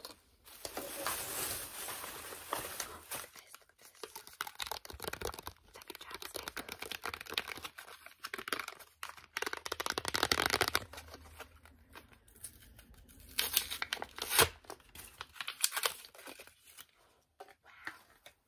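Plastic and cardboard product packaging crinkled and torn open by hand close to the microphone, in several spells of crackling, the longest and loudest about ten seconds in, then a few sharp separate clicks near the end.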